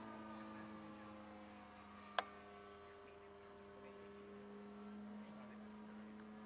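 Engine of a radio-controlled model Cessna in flight, a faint, steady drone whose pitch drifts slightly as the plane flies overhead. A single sharp click sounds about two seconds in.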